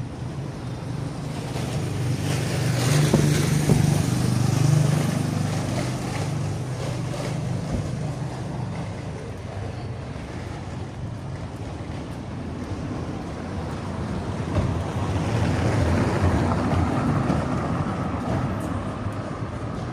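Street traffic: a low engine rumble from passing vehicles swells twice, about three seconds in and again around fifteen seconds, over a steady outdoor hiss with some wind on the microphone.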